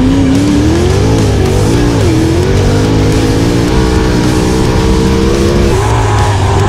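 A 410 sprint car's 410 cubic-inch V8 at racing speed, its pitch dipping sharply about one and two seconds in, then climbing and holding, as the car lifts and gets back on the throttle. Background music with guitar plays along with it.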